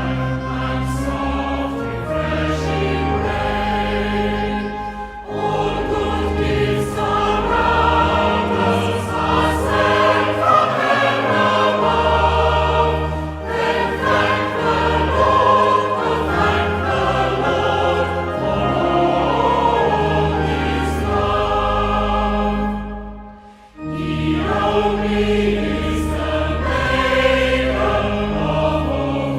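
Choir singing a hymn with accompaniment, with sustained chords over a deep bass line; the music dips to a short break about 23 seconds in, then resumes.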